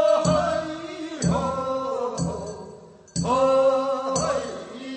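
Korean sangyeo-sori, the bier bearers' funeral song of Gyeongsang province: voices sing a refrain in long held notes between the lead singer's lines. A beat is struck about once a second, with a short break about three seconds in.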